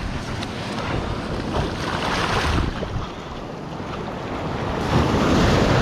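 Surf washing in at the water's edge, swelling twice, with wind buffeting the microphone.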